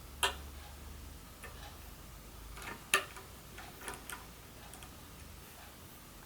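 Light clicks and taps of small tools and phone parts being handled during a phone screen repair: a sharp click about a quarter second in, the loudest near three seconds in, and a few fainter ticks around them.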